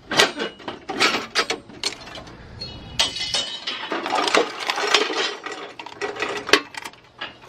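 Metal scrap being moved by hand in a pile: a string of clanks, clinks and knocks, with a denser scraping rattle from about three to five seconds in.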